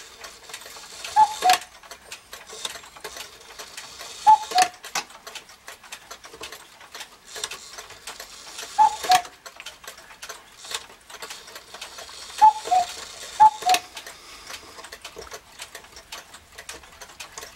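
East German cuckoo clock's cuckoo calling five times at uneven intervals, each call two notes, high then lower, with a click from the mechanism and no gong. The clock ticks steadily between calls.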